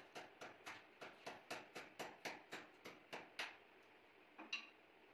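Utility knife blade scraping through a plastic ceiling panel in quick, short strokes, about four a second, stopping about three and a half seconds in; one or two sharper clicks follow shortly after. Faint.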